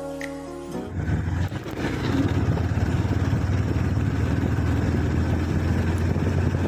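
Background music that stops about a second in, followed by a motorcycle running at road speed: a steady low engine drone with road and wind noise.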